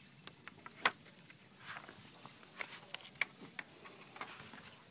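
Scattered light clicks and knocks from folding-kayak frame parts being handled and taken apart, the sharpest about a second in and another a little after three seconds.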